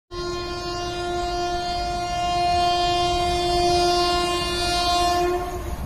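Indian Railways express train's locomotive horn sounding one long steady blast on a single note, cutting off near the end, over a low rumble as the train approaches at speed.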